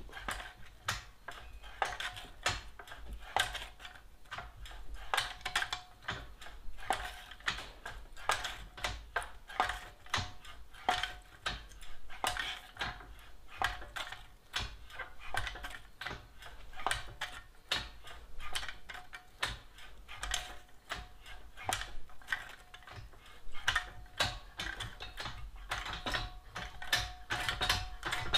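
Vevor deep-throat shrinker-stretcher working a strip of sheet metal, its jaws clacking shut in repeated strokes about two a second, each with a short metallic ring, as the strip is fed through and curved.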